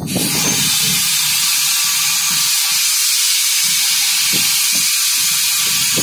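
Compressed air hissing loudly and steadily from the locomotive's air brake, starting and cutting off abruptly after about six seconds.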